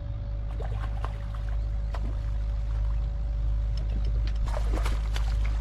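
Small waves lapping and splashing against a fishing boat's hull over a steady low rumble, with a faint steady hum underneath. The splashing is busiest near the end.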